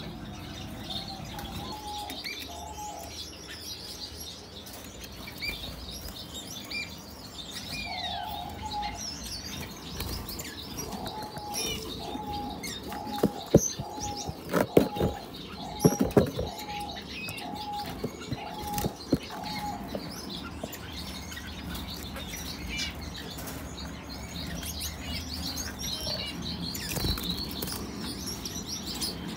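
Small aviary birds twittering with many short, high chirps, with wings fluttering. From about ten seconds in, one bird repeats a lower call over and over, a little faster than once a second, for about eight seconds. In the middle of that run come a few loud, sharp knocks.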